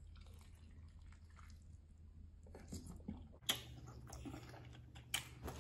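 Faint chewing of a jerk chicken drumstick, with soft mouth clicks and smacks that grow a little louder about halfway through.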